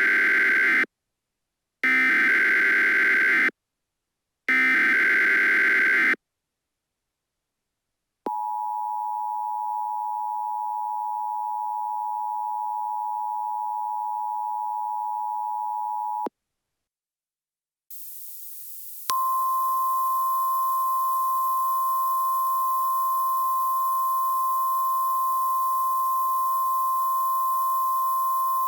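Emergency Alert System alert signals: three short bursts of warbling digital data noise (the SAME header), then the two-tone attention signal held steady for about eight seconds. After a short pause and a burst of hiss, a steady single-pitch NOAA Weather Radio-style warning tone sounds for about ten seconds with a hiss under it.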